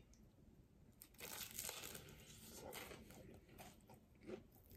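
A crunching bite into crispy, sauce-coated fried chicken, loudest just over a second in, followed by chewing with smaller crunches.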